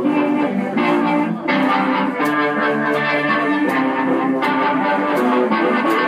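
A blues band playing live, with electric guitar to the fore and regular drum strikes.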